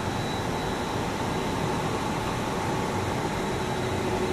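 Steady rumble and hiss of an Airbus A300-600F freighter's twin turbofan engines on final approach, with thin steady whining tones; a lower tone joins near the end.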